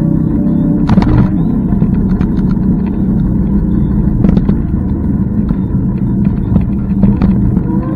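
Loud, steady low rumble of riding an electric scooter, road and wind noise on the camera microphone, with a few short sharp clicks along the way.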